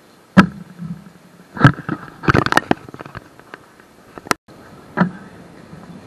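Hard plastic knocking and clattering on a tabletop as a 7x7 speedcube and its timer are handled. There is a sharp knock, another about a second later, then a quick run of clicks, and two more single knocks near the end.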